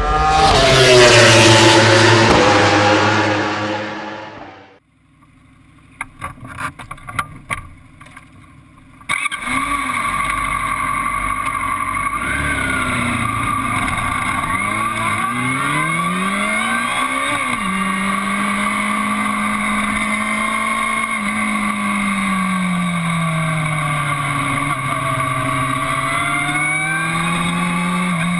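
A loud sound with falling pitch fades away over the first four seconds, followed by a quiet stretch with a few clicks. About nine seconds in, a 2012 Aprilia Tuono APRC's V4 engine cuts in and runs under way, its pitch rising and falling gently with the throttle.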